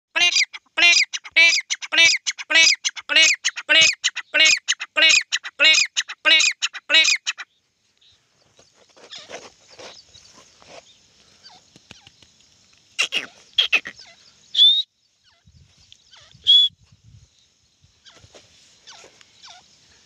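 Grey francolin (desi titar) calling: a loud, fast series of harsh repeated notes, about three a second, that stops after about seven seconds. Two short high whistled notes follow later.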